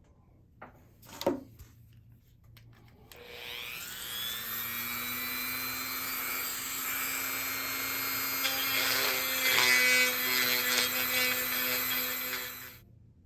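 A knock or two from handling, then a small power tool's motor spins up with a rising whine, runs steadily while cutting into wood with a rasping grind, and stops abruptly near the end.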